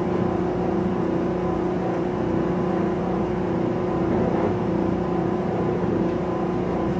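Interior running noise of a Mugunghwa-ho passenger train moving through a station: a steady rumble with a few held hum tones under it.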